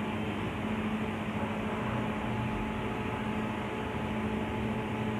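Steady low hum with hiss, a continuous background noise that does not change.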